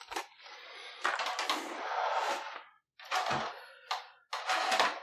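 Plastic top cover of a PlayStation 4 being slid back off the console: a scraping slide of plastic on plastic, then a few sharp clicks and knocks as the cover's clips let go.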